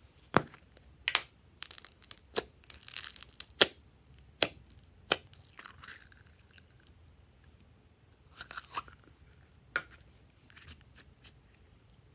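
A plastic slime cup handled by hand: sharp clicks and snaps of the cup and lid through the first few seconds. Then sticky crackling and tearing as glossy slime is squeezed out of the cup and stretched between the fingers.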